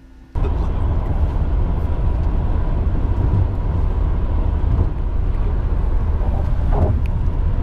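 Steady low rumble of a moving vehicle, heard from inside, cutting in abruptly just after the start.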